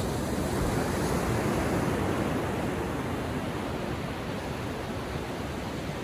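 Ocean surf washing onto a sandy beach: a steady rush of breaking and receding waves, a little fuller in the first couple of seconds and then easing.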